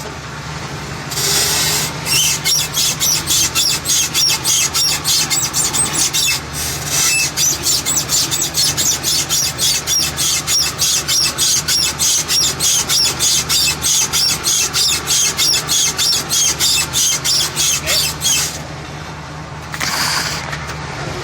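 Worn universal joint on a 2007 Chevy Express van's driveshaft squeaking in a fast, even rhythm of about three high squeaks a second, over a steady low hum. The squeaking starts a couple of seconds in, pauses briefly, then runs on until near the end. It is the sign of a U-joint going bad.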